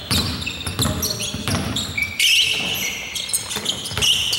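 A ball bouncing again and again on a hard indoor court, a thud every second or less, mixed with short high squeaks.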